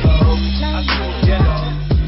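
Background music with a beat: deep kick drums over held bass notes, with a tune above.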